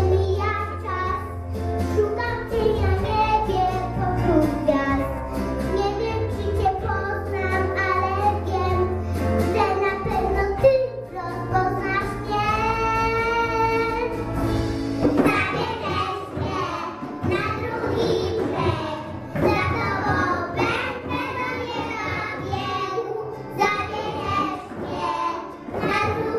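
Young children singing a song into microphones over a musical backing, with one girl's voice standing out for a stretch. The backing's deep bass stops about fifteen seconds in while the singing goes on.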